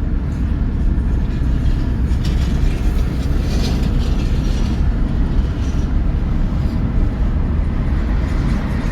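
Steady low rumble of a moving car's engine and tyres on the road, heard from inside the car.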